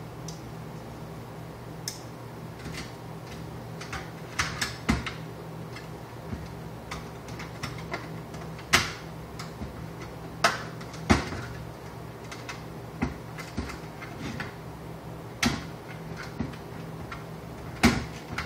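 Irregular clicks and knocks of a plastic fluorescent lamp holder and its wires being handled and pressed into a sheet-metal fixture channel, over a steady low hum.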